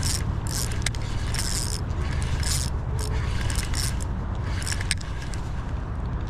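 Fishing reel being cranked to retrieve line, giving short repeated mechanical rasping bursts, over a steady low rumble.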